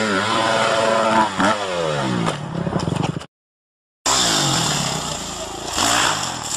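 Dirt bike engine revving, its pitch dropping over a couple of seconds; after a brief dead-silent cut, another engine revs and falls in pitch, with a burst of noise near the end.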